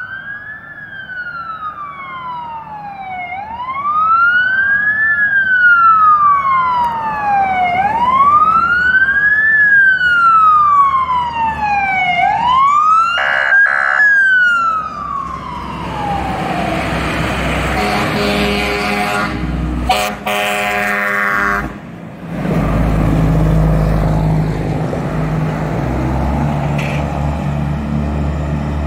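Electronic wail siren of a responding emergency vehicle rising and falling in slow sweeps, then long horn blasts about two-thirds of the way in, followed by the low rumble of a fire truck's engine approaching.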